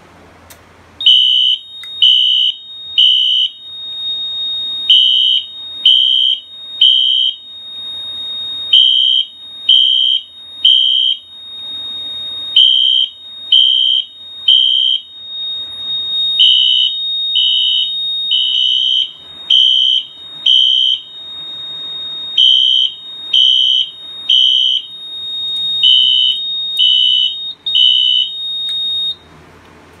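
Siemens ZH-MC-W-B fire alarm horn strobe sounding the temporal-three evacuation pattern: three short high horn blasts, a pause, then again, repeated. A continuous steady high tone runs underneath, and everything cuts off abruptly near the end.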